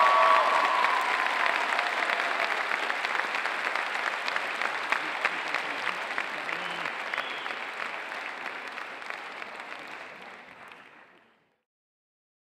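Audience applauding. The applause is loudest at first, slowly dies down, and cuts off to silence about eleven seconds in.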